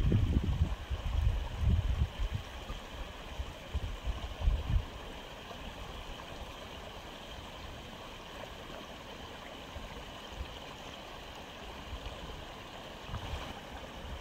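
Aquarium filter running: a steady flow of water into the tank. Irregular low rumbles come in the first few seconds and again near the end.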